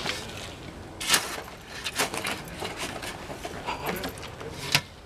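Shovel blade striking and scraping dry, gravelly dirt and rubble in several sharp strokes, the loudest about a second in.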